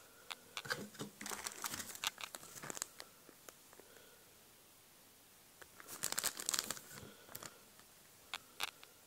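Clear plastic bag around a phone battery crinkling as it is handled, in two bouts of crackling, the second about halfway through, with a couple of sharp clicks near the end.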